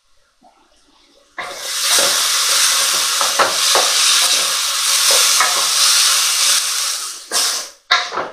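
Risotto rice sizzling loudly in a hot pan while being stirred, with the spoon scraping through it now and then. The sizzle starts suddenly about a second and a half in, and breaks off briefly twice near the end.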